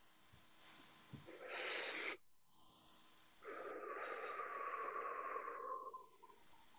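A person breathing heavily close to the microphone: a short, sharp breath, then after a pause a longer breathy exhale carrying a thin tone that slowly falls.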